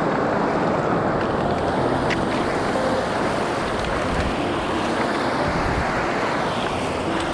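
Fast-flowing mountain stream rushing over rocks: a loud, steady rush of water.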